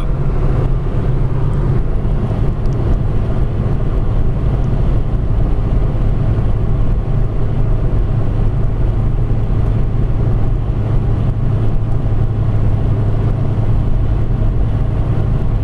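Steady drone of a car driving at highway speed, heard from inside the cabin: continuous low engine and road noise.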